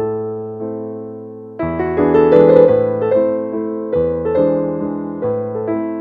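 Background piano music: slow chords and melody notes, each struck and then fading, growing fuller and louder a little under two seconds in.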